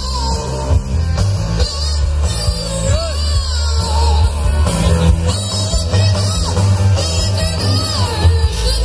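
Live rock band playing loudly through a big outdoor PA: electric guitars, bass guitar and drum kit, with a heavy, pulsing bass line.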